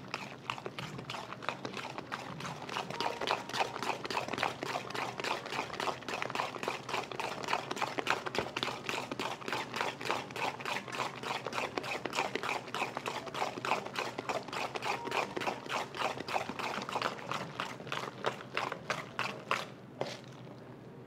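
Menbosha (bread-and-shrimp toast) deep-frying in hot oil, with dense, continuous crackling and popping. The crackling dies down about a second before the end.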